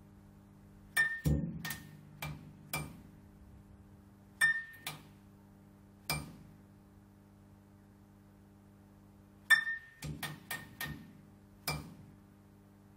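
Neon light tube flickering: a steady low electrical hum broken by irregular sharp clicks, some with a brief ringing tone, as the tube sputters on and off. The clicks come in clusters, with a quiet stretch of hum alone in the middle and a quick run of several clicks near the end.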